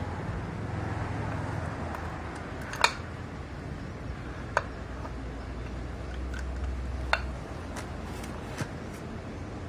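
Sharp metal clicks and knocks of Honda EX5 gearbox parts as the starter shaft is worked into the crankcase among the gears: three distinct clinks, the loudest about three seconds in, with a few fainter ticks. A steady low hum lies underneath.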